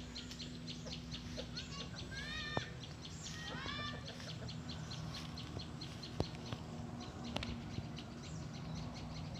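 Domestic roosters giving a few short clucking calls about two to four seconds in, over a fast, even ticking and a low steady hum.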